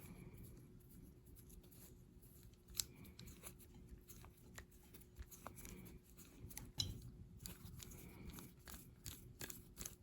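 Faint, scattered light clicks and soft scratching from handling a small metal hand tool on a workbench.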